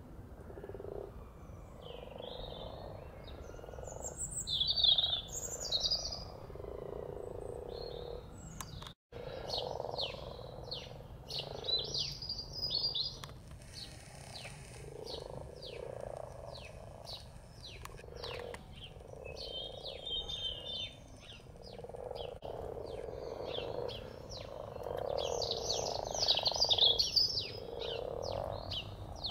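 Mating chorus of common frogs: soft, low croaking purrs repeating throughout. Songbirds chirp and trill over them.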